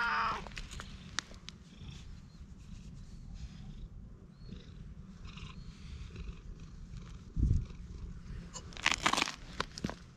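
Tabby cat purring steadily while being stroked, after a meow that ends just after the start. Near the end come a low thump and then loud brushing noises close to the microphone.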